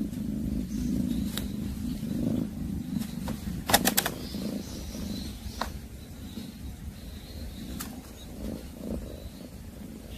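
A cat scuffling after a mouse in a red plastic basket: sharp clicks and rattles, with a quick cluster of them about four seconds in, over a low rumble that fades after the first few seconds.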